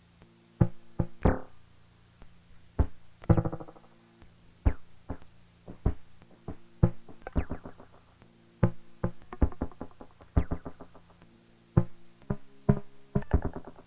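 Behringer Neutron analogue synthesizer playing a pattern of short, plucked notes in an uneven rhythm, a few of them longer and brighter, over a faint steady low drone.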